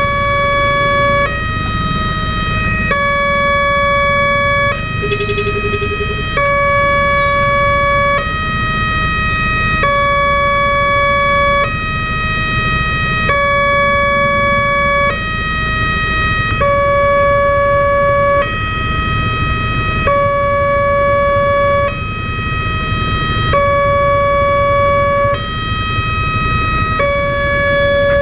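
Railway level-crossing warning siren, an unusual electronic siren, sounding a steady tone that alternates between a higher and a lower pitch about every 1.7 seconds, over a steady low rumble.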